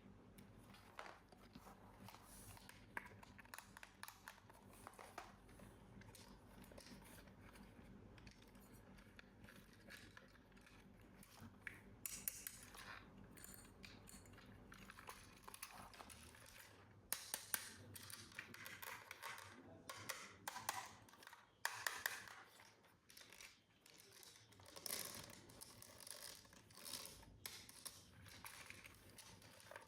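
Faint scattered clicks, taps and scrapes of hands unpacking and handling a toy, busier and louder in the second half.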